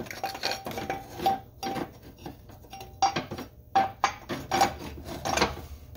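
Cast metal transmission mount bracket clinking and clanking against its studs and the transmission as it is set down and worked into place by hand. The knocks are irregular and short, several with a brief metallic ring.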